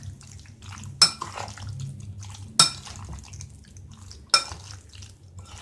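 Metal spoon stirring soya chaap pieces in a thick curd marinade in a glass bowl, with soft wet mixing sounds. The spoon clinks sharply against the glass three times, about a second and a half apart.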